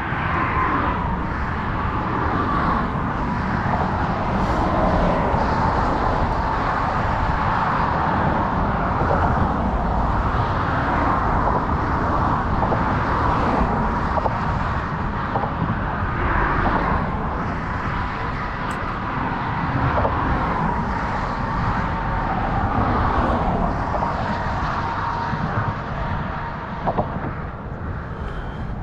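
Outdoor ambience: a steady rushing noise with road traffic, cars running along the road.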